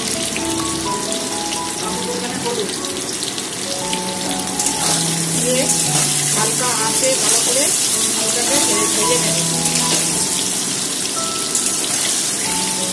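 Potato chunks sizzling in hot oil in a metal kadai as a metal spatula stirs them. The sizzle grows a little louder a few seconds in. Soft instrumental background music plays under it.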